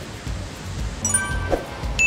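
Background music with low bass notes, and a bright chime-like ding about halfway through.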